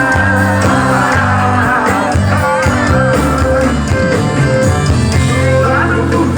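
Music playing steadily, with singing over instruments.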